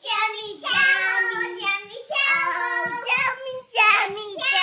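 Young child singing a high-pitched tune in short phrases of held notes, breaking off briefly twice.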